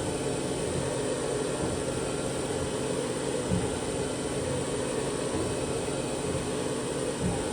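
Haas VF-3 vertical machining center running, a steady whirring machine noise with a soft low thump about every four seconds.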